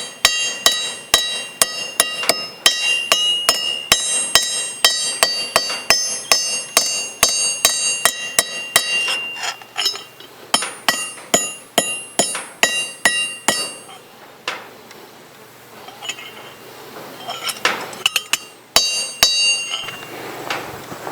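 Hammer cold-forging spoon metal into an arrowhead: quick, even blows, about three a second, each with a bright metallic ring. The hammering breaks off briefly twice and ends with a short flurry of blows near the end.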